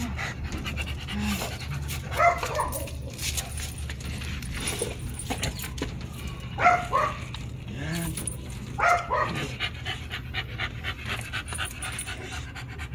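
American bully dogs panting, with a few short whines about two, seven and nine seconds in.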